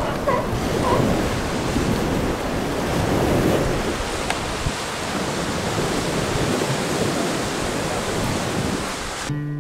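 Ocean surf washing steadily on the beach, mixed with wind. Acoustic guitar music starts just before the end.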